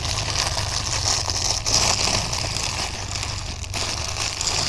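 Plastic bag crinkling steadily as it is handled and opened, over a low steady rumble.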